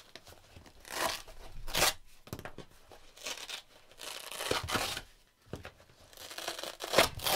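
Hook-and-loop (Velcro) fastenings on padded camera-bag dividers ripping apart as the dividers are pulled loose, in several short rips, one longer near the middle.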